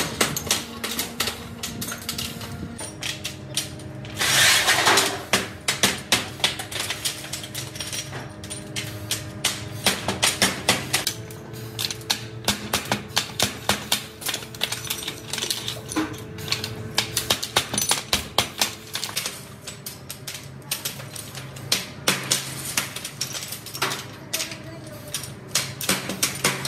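Cast brake-shoe shells clinking and clattering as they are handled and sorted, a run of sharp irregular clicks, over background music with long held notes. A louder rushing noise lasts about a second, around four seconds in.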